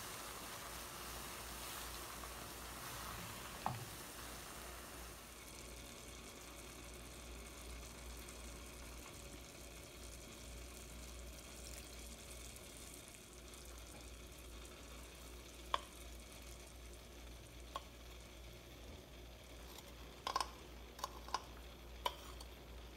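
Sugar syrup boiling in a nonstick pan while it is cooked down to one-string consistency, with a steady bubbling sizzle. A silicone spatula stirs it for the first few seconds. Sharp clicks and taps come now and then, with a small cluster near the end.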